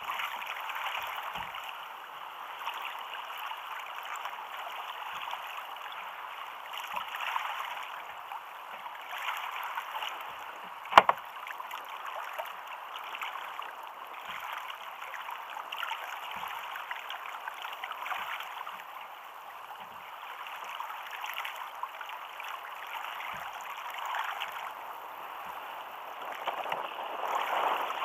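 Choppy sea water slapping and sloshing against a sit-on-top fishing kayak's hull, with one sharp knock about eleven seconds in.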